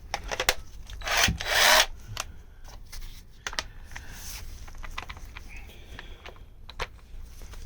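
Tools being handled and set up on the engine: scattered clicks and knocks, with two short loud scraping rushes between about one and two seconds in.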